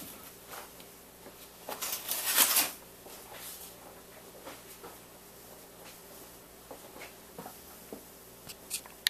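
Brief rustling about two seconds in, followed by faint scattered clicks and light taps, with a few sharper ticks near the end: the sound of things being handled on a work table.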